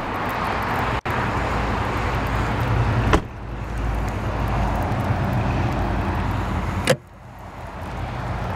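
Steady wind buffeting the microphone outdoors, a low rumbling hiss, broken by two sharp clicks about three and seven seconds in.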